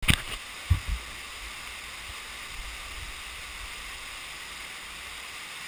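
Steady rushing hiss of running water in a cave passage. A sharp knock and two dull thumps sound in the first second.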